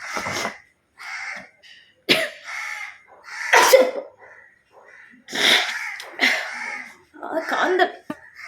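A woman sneezing over and over, a string of short explosive sneezes with breaths between, the loudest about halfway through. The sneezes are set off by spice powder sniffed into the nose, which she says is burning.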